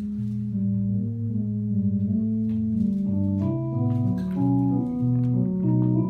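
Improvised music of held, organ-like keyboard notes in a low register. The notes shift every half second to a second, and more and higher notes join after about three seconds, with a few faint light clicks.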